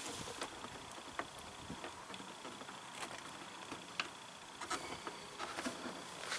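Sparse small clicks and scrapes of a screwdriver prying a mud guard retaining clip onto the plastic edge at a fender flare, the clearest click about four seconds in.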